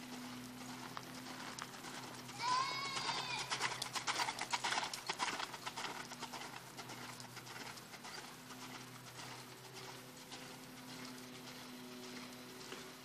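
A short animal call that rises and falls in pitch, about two and a half seconds in, followed by a few seconds of rapid, dense clicking that fades into a quieter steady background.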